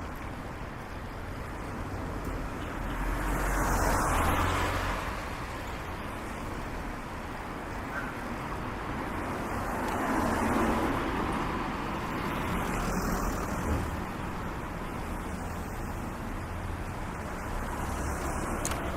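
Street traffic: cars passing, their noise swelling up and fading away, loudest about four seconds in and again about ten seconds in, over a steady background hum.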